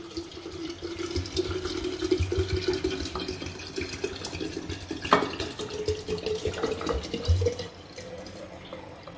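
Water pouring from a glass bottle into a glass jar of sliced cucumber, lemon and mint, splashing steadily, its pitch rising slowly as the jar fills. The stream dies down near the end.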